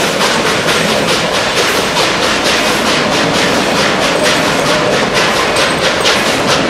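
Narrow-gauge wooden passenger coaches of a steam train rolling past close by, their wheels rumbling on the rails with a quick, steady rhythm of clicks.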